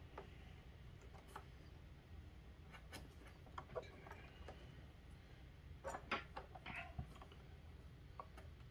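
Faint, irregular clicks and light rustling as stranded copper wire ends of pigtail leads are handled and twisted by hand, with the most noticeable cluster of clicks about six seconds in, over a low room hum.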